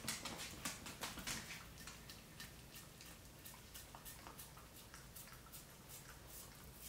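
A Shiba Inu licking and lapping with wet tongue clicks and smacks: a quick run in the first second or so, then sparser licks.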